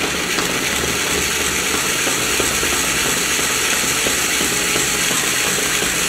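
Small electric motor of a homemade model-tractor grape-juice machine running steadily.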